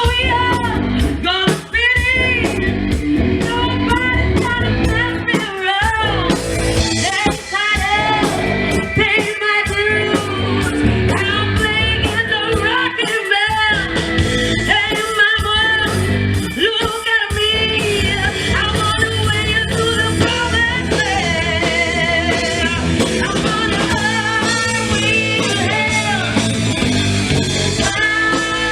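Live band playing a song, with a lead singer's voice over the amplified band.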